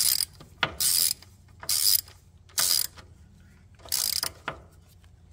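Hand ratchet wrench tightening a bolt on a clutch slave cylinder, in five short strokes of ratchet clicking about a second apart.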